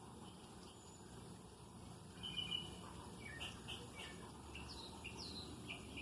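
Small birds chirping: scattered short chirps, a brief trill, two quick downward-sliding calls, then near the end a rapid run of chirps about four or five a second, over faint steady background noise.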